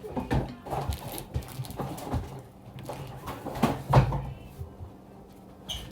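Irregular knocks and bumps of things being handled and moved, the loudest about four seconds in, then quieter toward the end.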